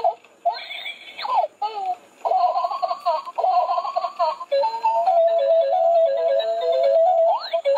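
Crawling baby doll toy playing its built-in electronic sounds: first a recorded baby giggling and babbling, then from about halfway a simple beeping electronic tune with short repeating notes.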